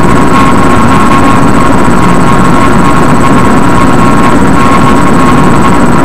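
Loud, steady droning noise over a rumble, with two steady mid-pitched tones and a constant thin high whine.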